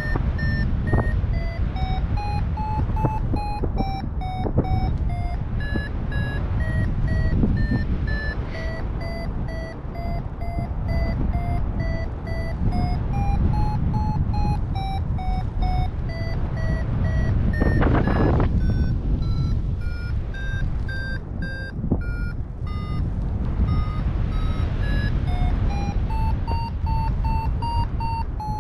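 Paragliding variometer beeping in a run of short tones whose pitch steps up and down, signalling that the glider is climbing in lift. Wind rushes over the microphone throughout, with a brief louder gust about eighteen seconds in.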